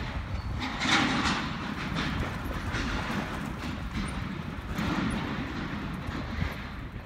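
Bicycle rolling over cracked, patched asphalt, rattling and clattering irregularly over the bumps, with wind rumbling on the microphone.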